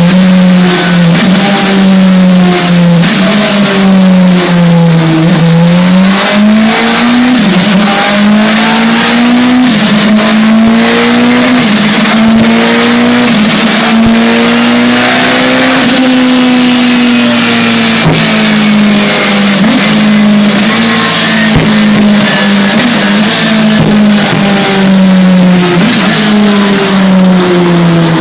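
Radical SR3 1500's 1500 cc four-cylinder engine running loud under load on a dyno, its revs rising and falling in steps and slow sweeps, broken by short irregular stutters: the odd misfire the owner is chasing.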